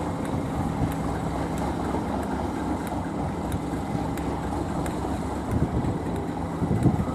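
A train's engine running steadily at a constant pitch, a low even drone with some wind noise.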